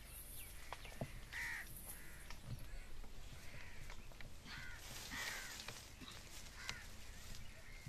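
Crows cawing, several short calls spaced out over a few seconds.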